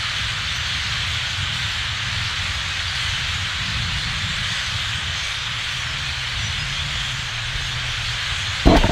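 Din of a very large flock of birds calling all at once, a steady dense chatter that blurs into a hiss. Near the end, loud bumps and rumble on the microphone break in.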